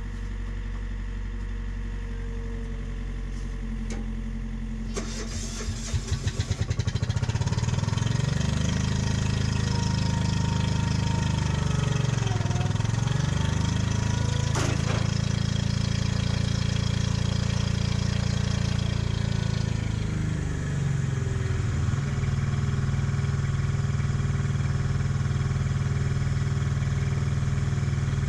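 Diesel engine of a mini excavator running at low speed, then picking up with a quick run of pulses about six seconds in and settling at a steady high speed. Its pitch dips and recovers about twelve seconds in, and near twenty seconds it drops back to a lower steady speed.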